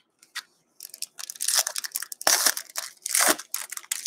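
Shiny foil wrapper of a hockey card pack being torn open and crumpled: a run of crinkling, crackling rustles starting about a second in.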